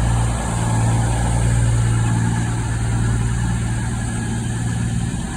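Diesel train engines running at a station platform: a steady low hum.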